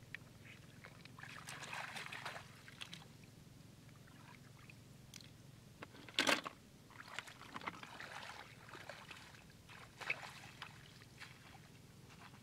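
Shallow water splashing and trickling as hands grope through it and feet wade, in short irregular bursts. About halfway through comes one sharp knock, the loudest sound, as snails are dropped into a plastic bucket.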